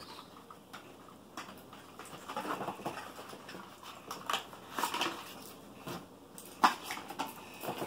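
Small cardboard box being opened by hand: its flaps and cardboard inserts rustle and scrape, with scattered sharp clicks and taps, the sharpest about two-thirds of the way through.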